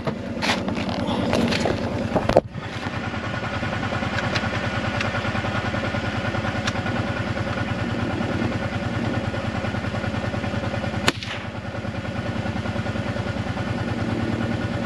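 Side-by-side utility vehicle's engine idling steadily, with a sharp crack about two and a half seconds in and another about eleven seconds in.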